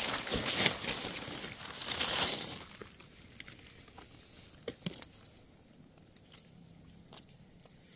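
Dry leaf litter rustling and crackling for about two and a half seconds, then a few light snaps and clicks.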